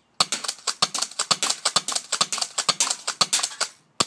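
Rapid plastic clicking and rattling from a spring pump-action airsoft shotgun and its BB magazine, with stronger knocks about twice a second, likely the magazine being shaken to feed the last 0.12 g BBs.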